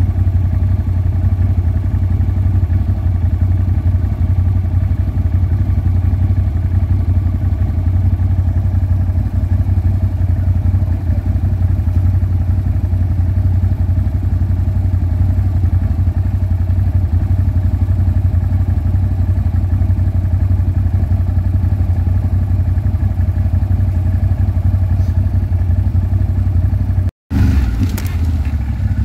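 ATV engine running steadily at an even speed, without revving. The sound drops out for an instant about 27 seconds in.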